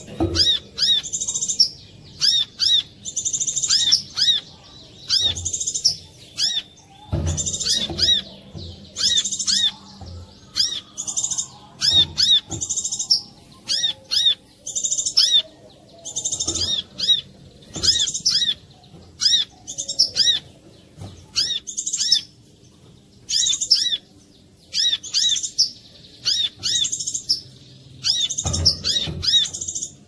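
Brown-throated sunbird (korlap) calling: clusters of quick, high, sharp chirps and trills, repeated every second or two, used as a lure call to set other sunbirds singing. A few low thuds underneath.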